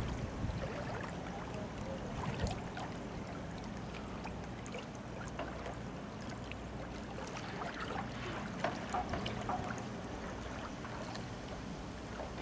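A steady low hum with light clicks and ticks scattered through it, over faint moving water.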